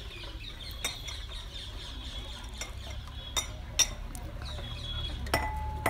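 A metal spoon stirring a thin buttermilk mixture in a metal pot, clinking sharply against the pot's side about five times, over a low steady rumble.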